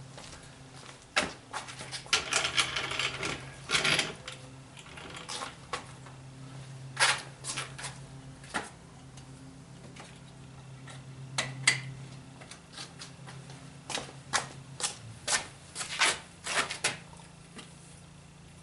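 Irregular plastic clicks and rattles of hands working automotive wiring-harness connectors, plugging the fog light wiring into the existing harness, over a steady low hum.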